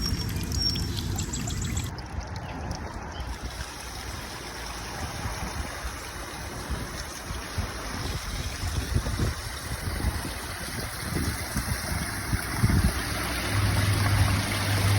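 Backyard pond waterfall running: water splashing and trickling steadily into the pond. A low steady hum joins near the end.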